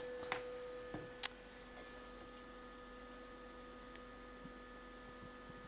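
Faint steady electrical hum from the bench equipment, holding several fixed pitches, with a couple of sharp clicks in the first second and a half and a few faint ticks after.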